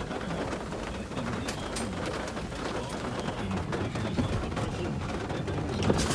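Steady rain falling, with a few sharp clicks and knocks, the loudest near the end.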